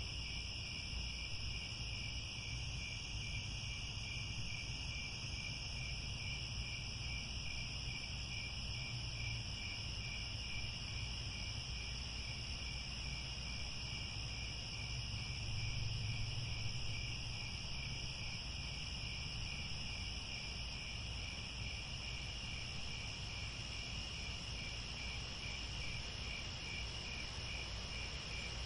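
Crickets chirping steadily in chorus: a continuous high trill with a second, evenly pulsing chirp beneath it.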